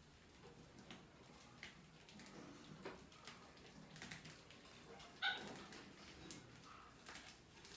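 Mice scrambling over a wire fan-guard lid and plastic bucket: faint scratching and clicking of claws, with one short squeak about five seconds in.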